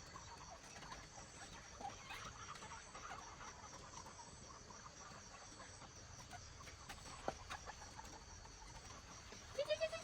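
Insects chirping steadily in a high, finely pulsing trill, with faint scattered higher chirps. About a second before the end a louder animal call comes in, rising briefly in pitch and then holding steady.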